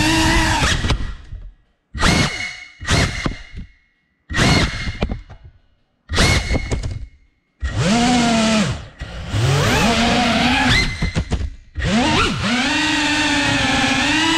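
Cinewhoop FPV drone's electric motors and ducted propellers whining. In the first half the throttle comes in several short bursts that drop out to near silence between them; from about eight seconds in it runs in longer stretches, the pitch rising and falling with the throttle.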